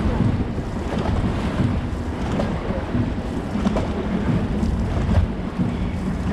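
Wind rumbling steadily on the microphone over the wash of water on the boat.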